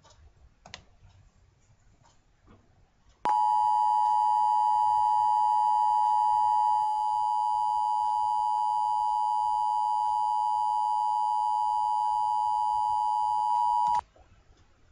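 Emergency Alert System attention signal: a loud, steady two-tone beep that starts about three seconds in, holds for about ten seconds and cuts off suddenly. A few faint clicks come before it.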